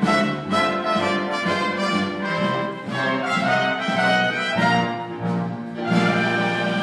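Live pit orchestra playing show music for a stage musical, with brass prominent, heard from the audience seats in a hall.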